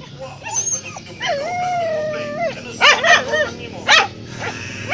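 A dog gives one long whining call, then a quick run of short barks about three seconds in and one more bark a second later.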